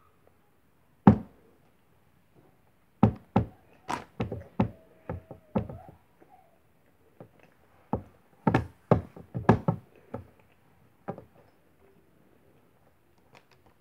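Irregular series of sharp knocks: a single loud one about a second in, then a quick run of knocks between about three and six seconds, another run around eight to ten seconds, and a last one near eleven seconds.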